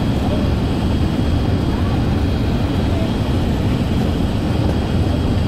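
Steady cabin noise of an Airbus A380-842 heard from a window seat over the wing: engine and airflow noise from its Rolls-Royce Trent 900 engines and the airframe, on approach with the flaps extended.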